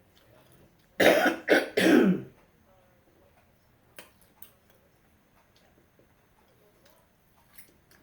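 A woman coughing three times in quick succession, a cough from a head cold. A few faint clicks follow.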